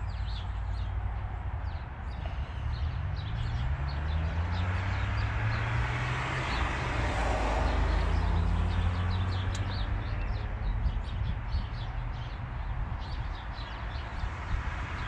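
A vehicle engine passing by, rising in pitch over the first few seconds and loudest about halfway through, with birds chirping.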